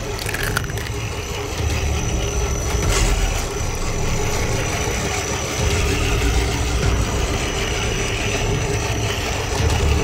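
Radio-controlled 4x4 pickup truck crawling through mud, its motor and drivetrain whining steadily, louder in surges as the throttle is worked.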